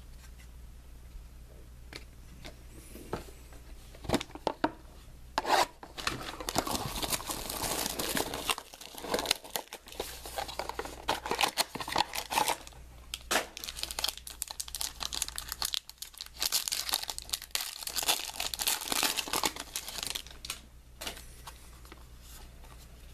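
A sealed trading-card box's packaging being torn open and crinkled, in crackling stretches with short pauses starting about five seconds in. A few sharp clicks and taps of handling come before and after.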